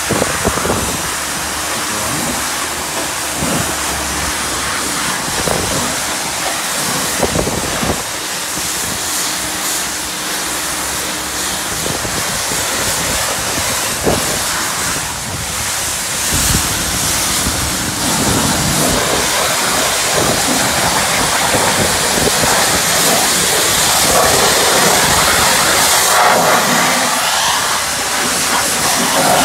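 High-pressure water jet from a car-wash spray wand hissing steadily as it rinses thick foam off a car's body and wheels.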